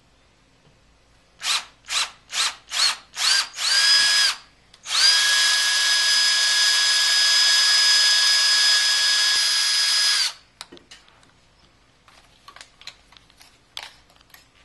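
Cordless drill with a small bit drilling a pilot hole into a motorcycle swingarm: about six short trigger bursts, then one steady run of about five seconds that stops abruptly.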